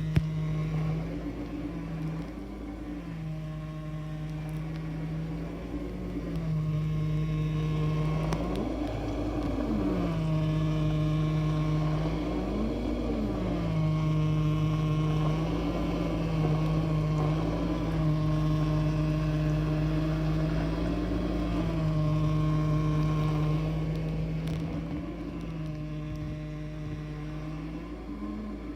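LG QuadWash dishwasher running with a loud droning hum, a new sound for this machine. The hum's pitch swells up and falls back every few seconds, and it grows louder through the middle before easing off near the end.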